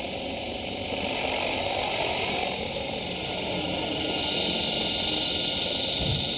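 Blade mCP X micro RC helicopter's electric motors and rotor running with a steady whirring hiss, growing a little louder as it spools up and lifts off the grass near the end.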